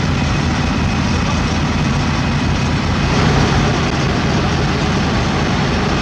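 Diesel engine of a Sakai tandem asphalt roller running steadily at close range as it compacts fresh asphalt, a deep continuous rumble that swells slightly about three seconds in.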